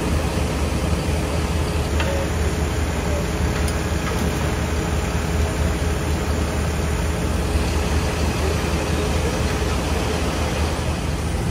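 Heavy diesel truck engine idling steadily, a constant low hum, with a couple of faint clicks about two and four seconds in.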